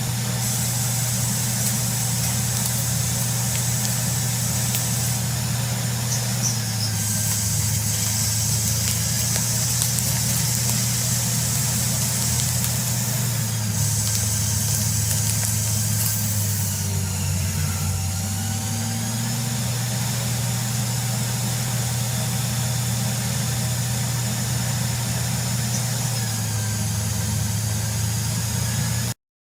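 CNC lathe running through a cut, with a steady low machine hum that steps in pitch a few times and a high hiss that comes and goes twice in the middle. The sound cuts off sharply near the end.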